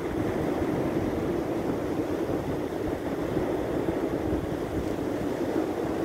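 Wind buffeting the microphone over the steady rush of ocean surf breaking on a beach.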